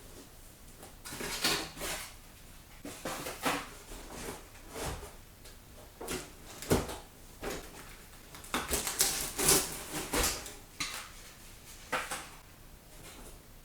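Plastic toy-house parts and packaging being handled: irregular knocks, clatters and rustles, busiest about nine to ten seconds in.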